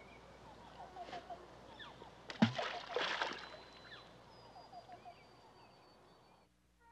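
Something drops into the river with a sudden splash about two and a half seconds in, followed by a brief watery rush. A bird calls now and then in short runs of quick notes.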